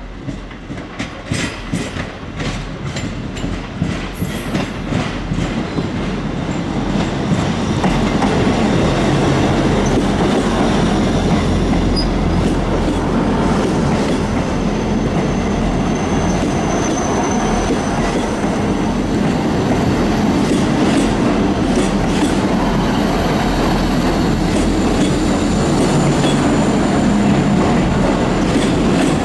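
A train running into the station: rhythmic clicks of its wheels over rail joints grow louder over the first several seconds, then settle into a steady loud rumble. A faint high squeal of the wheels comes briefly about halfway through.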